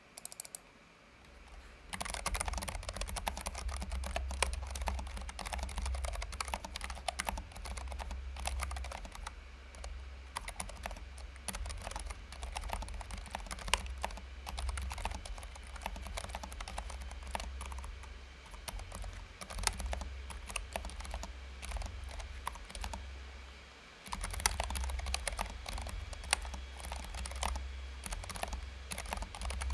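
Typing on a Keychron K7 low-profile mechanical keyboard fitted with Keychron's tactile low-profile optical Mint switches: a steady run of key clicks starting about two seconds in, with a short break about four-fifths of the way through.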